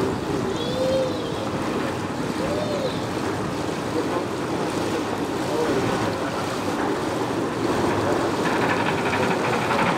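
Tour riverboat under way: a steady wash of water and motor noise, with wind buffeting the microphone.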